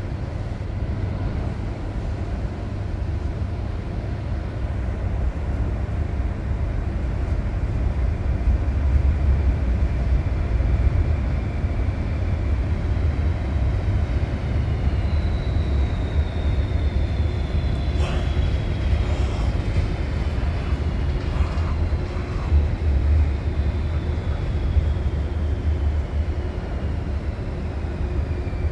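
Electric train in an underground metro tunnel: a steady low rumble, and from about halfway two high whines that slowly fall in pitch as it slows, with a couple of sharp clicks.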